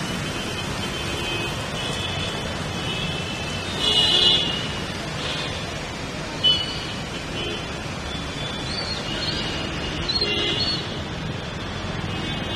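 Cars driving through a flooded street, their tyres sloshing and splashing through the floodwater as a steady rushing noise. A few brief higher-pitched sounds come over it, the loudest about four seconds in.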